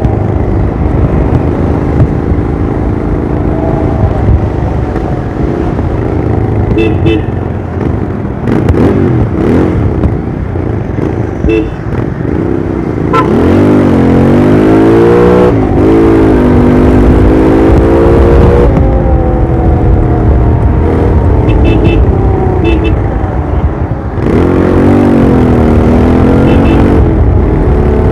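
Royal Enfield Interceptor 650's parallel-twin engine and exhaust under way, the pitch rising and falling several times as the rider opens and closes the throttle, with wind rushing on the microphone.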